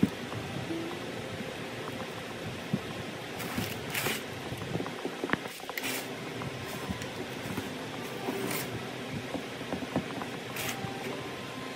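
Hands pressing and spreading pie crust dough into a metal baking pan: soft squishing and rubbing, with a handful of short brushing sounds, over a steady room hum.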